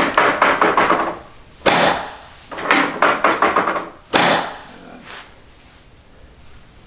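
Chiropractic drop table working in two cycles: a fast run of clicks as a table section is set, then a sharp clack as the section drops under the adjusting thrust.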